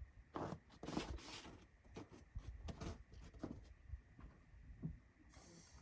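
Scattered small clicks, knocks and rustles of tools and parts being handled and rummaged through, with a short hiss near the end.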